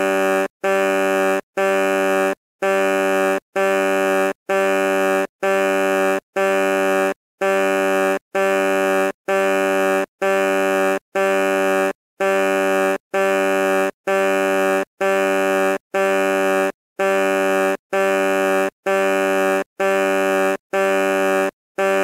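Truck horn honking in a steady loop of identical short blasts, a little more than one a second, each at the same low pitch.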